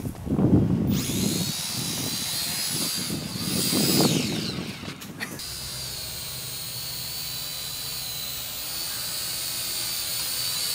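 Syma X5C quadcopter's four small electric motors and propellers whining at a high, steady pitch as it lifts off and hovers, the pitch dipping briefly about three to four seconds in. Two louder rushes of low rumbling noise come near the start and about four seconds in. The whine of all rotors in flight shows the replaced motor is now working.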